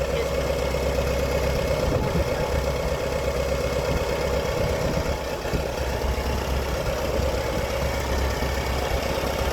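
Farmall 140 tractor's freshly rebuilt four-cylinder gasoline engine running steadily, with a constant even note. It has new rings and bearings and runs smoothly.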